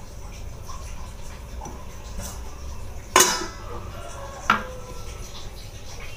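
Two metallic clanks about a second and a half apart, the first louder with a short ring: a stainless steel lid set down on a cooking pan, with steel kitchenware knocking together.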